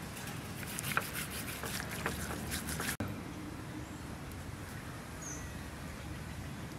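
Steady outdoor background noise with a run of light ticks and clicks over the first three seconds that cuts off abruptly, then a single brief high chirp about five seconds in.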